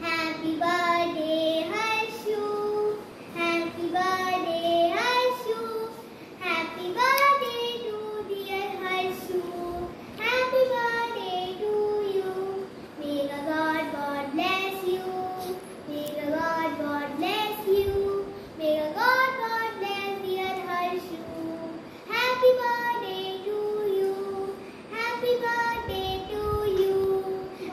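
A young girl singing solo, in long held phrases with short breaths between.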